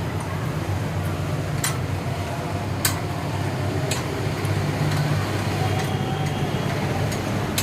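Steady low mechanical hum of a running motor, with a few sharp metallic clicks and taps from work on a motorcycle shock absorber.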